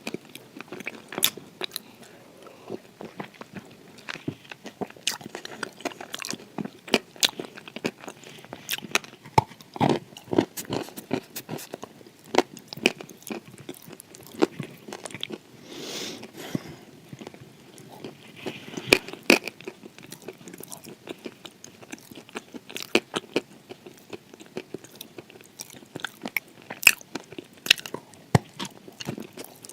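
Close-up biting and crunching of hard, crisp pieces of eating clay, with sharp, irregular snaps as they are chewed.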